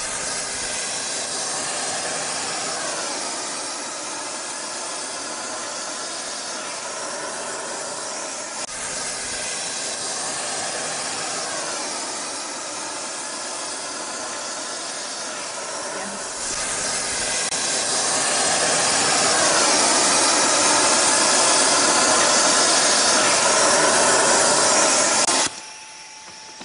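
Loud, steady hiss from a rail thermite welding set-up. It grows louder a little past halfway, then cuts off abruptly just before the end.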